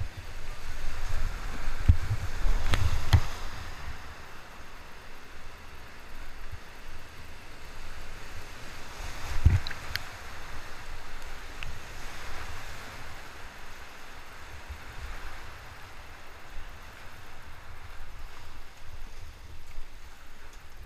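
Rushing whitewater around a kayak running a steep rapid, with water splashing and buffeting the microphone. Heavy low thumps and splashes come about two to three seconds in and again near the middle, then the rush of the water runs on more evenly.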